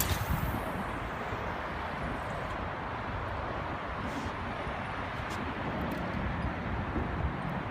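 Steady outdoor rumble and hiss with no clear single source, heaviest in the low end, with a short hiss at the very start and a few faint ticks.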